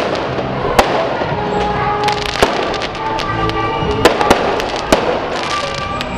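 Aerial fireworks bursting overhead: a run of sharp bangs at irregular intervals, several close together past the middle, with music playing underneath.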